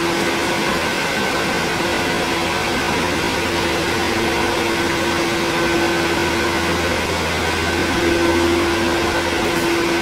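Steady mechanical hum of machinery with a constant droning tone and a hiss.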